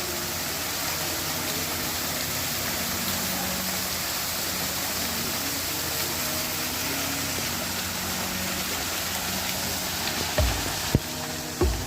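Water falling from an artificial waterfall: a steady, even rush. A few short low thumps come near the end.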